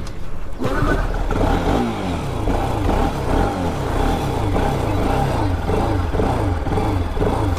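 Bajaj Pulsar RS200's single-cylinder engine catching under a push start and running, its pitch rising and falling again and again as the throttle is worked. The bike's battery is flat after long standing.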